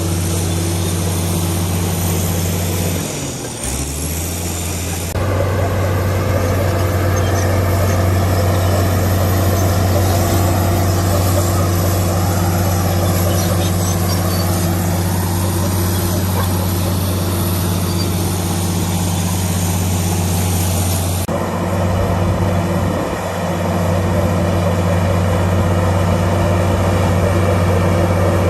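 Komatsu D65PX bulldozer's diesel engine running steadily. Its pitch dips and recovers briefly a few seconds in, and the tone changes abruptly twice.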